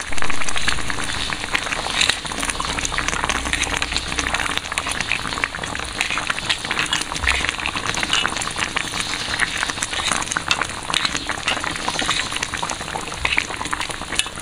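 Fish-head curry sizzling and bubbling hard in a steaming wok, a dense steady crackle, with a louder burst right at the start.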